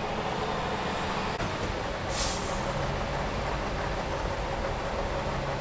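Mercedes-Benz 8x8 trial truck's turbo-diesel engine running steadily, with a brief high hiss about two seconds in, typical of a truck's air system venting.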